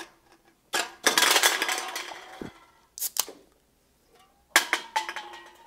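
Empty aluminium soda cans clattering and tumbling as a stacked pyramid of them topples, a long rattling clatter about a second in, then a few more clinks and knocks.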